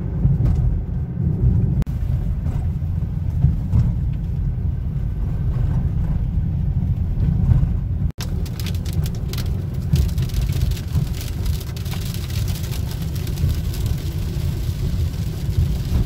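Steady low rumble of a car's tyres and engine heard inside the cabin while driving. After a cut about halfway through, dense quick ticking of large hail striking the car's windscreen and body joins the rumble.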